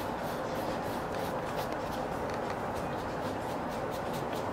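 Electric nail file with a sanding bit buffing callused skin on a toe, a steady motor whine over a sanding hiss.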